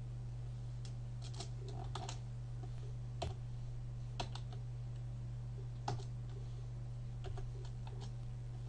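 Computer keyboard keystrokes: scattered, irregular clicks as a short line of code is typed, over a steady low hum.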